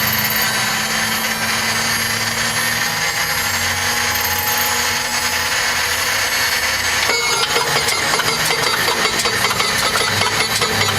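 A large engine running steadily. About seven seconds in the sound changes abruptly to a busier, rapid clattering.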